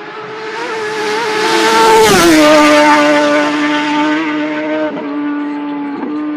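Senior TT racing motorcycle passing at full speed on the road course. Its engine note grows louder as it approaches, drops sharply in pitch as it goes by about two seconds in, then holds a lower steady note as it pulls away, with two short breaks in the note.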